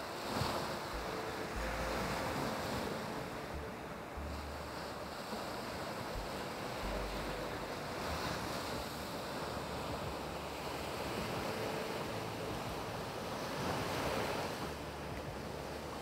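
Sea waves breaking and washing up a shingle beach, the surf swelling in surges every few seconds. Low wind rumble on the microphone comes and goes underneath.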